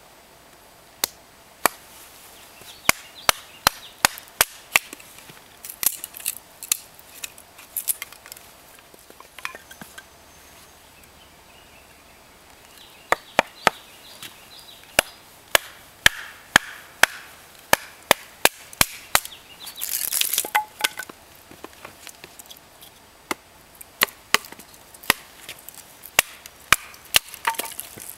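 Axe splitting short logs into kindling on bare rock: repeated sharp wooden knocks, mostly in quick clusters, with a lull of a few seconds around a third of the way through.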